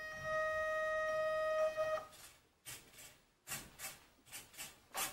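Steady electronic beep from an Mz-yy2004 RC truck's radio gear while its transmitter and receiver bind, stopping about two seconds in: the pairing signal. It is followed by a string of about seven short, sharp clicks.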